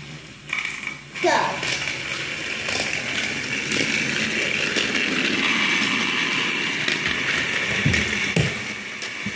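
Two Thomas & Friends TrackMaster battery-powered toy engines running along a tile floor, a steady high-pitched motor-and-gear whir that starts about a second in. A few knocks come near the end.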